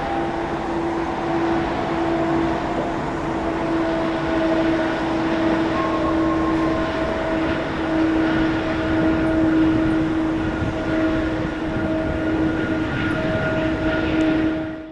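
United Airlines Boeing 777-200's Pratt & Whitney PW4000 jet engines running as the airliner rolls along the runway: a steady engine whine over broad jet noise, fading out at the very end.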